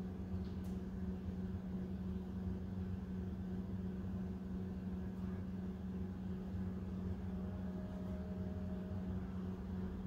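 Steady low hum with a constant tone over a faint rumble: room background noise.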